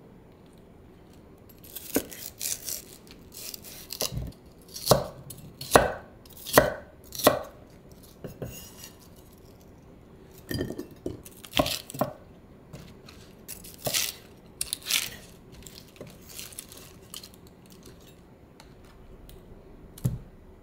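Kitchen knife cutting napa cabbage leaves on a wooden cutting board: irregular crisp cuts and knocks on the board, with a run of about five strong strokes some five to seven seconds in and scattered groups after.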